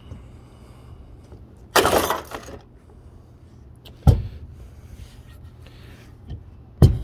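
Sledgehammer blows on an old plastic coffee maker on a wooden deck: a crashing smash with clattering debris about two seconds in, then two short, heavy thuds about four and seven seconds in.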